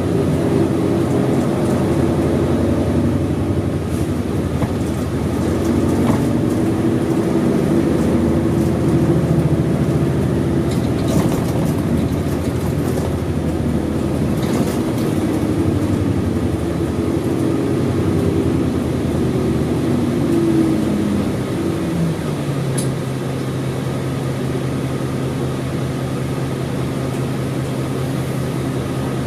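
Isuzu Erga city bus's V8 diesel engine heard from inside the cabin, pulling along with its note rising and falling. About twenty seconds in the revs wind down as the bus comes to a stop, and the engine settles to a steady idle.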